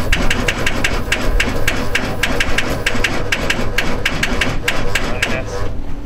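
Aston Martin CC100 being cranked by its starter without the engine catching: a steady whine with sharp regular clicks, about four or five a second, that stops after about six seconds.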